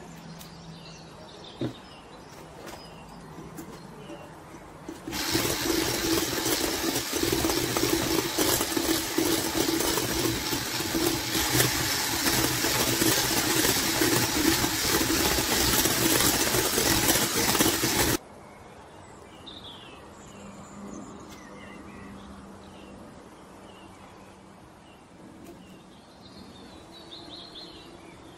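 Handheld electric mixer beating whipped cream and condensed milk in a glass bowl. It switches on about five seconds in, runs steadily with a hum for about thirteen seconds, and is switched off suddenly.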